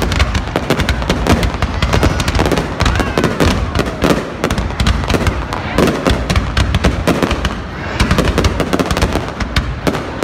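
Aerial fireworks display: a dense, continuous barrage of shell bursts and crackling, many reports a second, easing briefly about eight seconds in.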